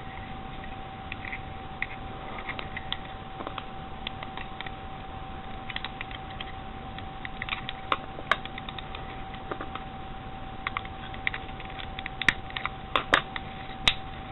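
Small plastic clicks and taps, scattered at first and coming more often and louder in the last few seconds, as a part of an external USB device is pressed and fitted back into its plastic housing, not yet seated and clipping in.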